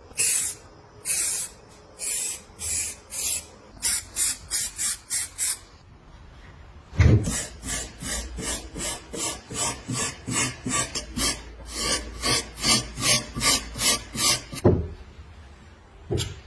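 Rasping strokes of a hand tool worked back and forth on a hard surface. First comes a slower, uneven set of about a dozen strokes, then, after a short pause, a faster steady run of about two and a half strokes a second lasting about eight seconds.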